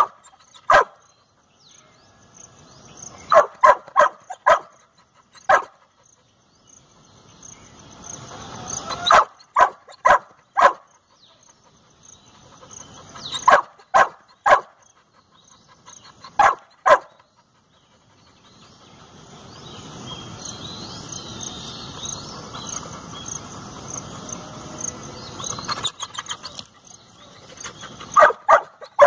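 A dog barking in bouts, now a single bark, now a quick run of three to five, with gaps of a few seconds between. A steady high insect chirring and bird chirps carry on underneath.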